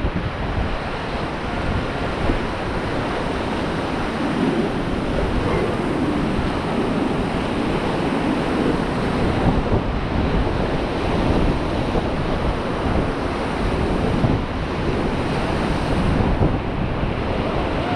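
Rushing river water of the Beas rapids, a steady loud churning, with wind buffeting the microphone.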